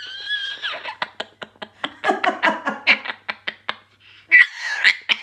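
African grey parrot vocalising: a whistle-like call at the start, then a run of clicks and mumbled, speech-like chatter, and a second louder whistle-like call near the end.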